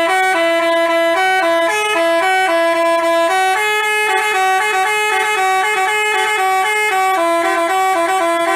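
Basuri telolet multi-tone horn playing a quick melody, loud, with two notes sounding together and stepping between pitches every fraction of a second.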